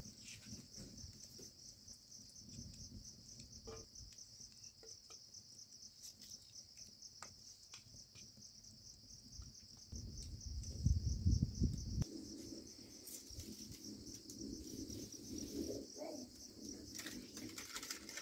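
Insects trilling steadily in a high, finely pulsing chorus, with scattered faint clicks and a brief low rumble about ten seconds in.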